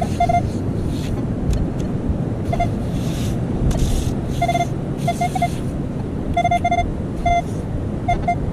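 Metal detector beeping over a target: short mid-pitched tones, often in quick pairs, at irregular intervals. Steady wind buffets the microphone underneath, with occasional rushes of hiss.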